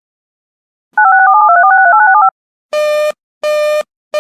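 A quick string of touch-tone (DTMF) digits, each a pair of tones sounded together, lasting about a second and a half, as part of an emergency alert broadcast's signalling. After a short gap comes a buzzy tone beeping on and off at a steady pace, twice, with a third beep starting at the very end.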